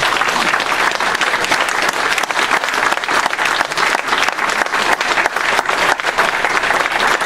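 Audience applauding: a steady round of clapping by a roomful of people.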